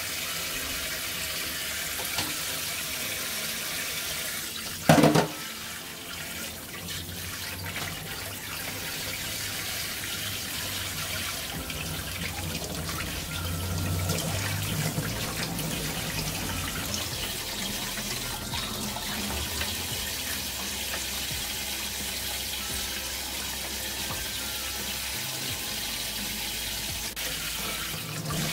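Kitchen tap running into a stainless-steel sink, the stream splashing over hands as they rinse and squeeze small octopus. A single short, loud knock about five seconds in.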